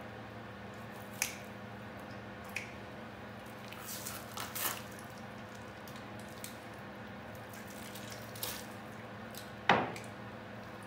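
Wet squelching and sharp snaps of a burbot being skinned by hand on a plastic cutting board, as the slippery skin and head are pulled and worked loose. The snaps come several times, the loudest near the end, over a steady low hum.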